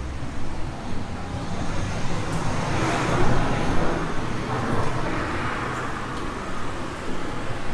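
Road traffic: cars passing by, the tyre noise swelling as one goes past about three seconds in and another a little later, over a steady low rumble.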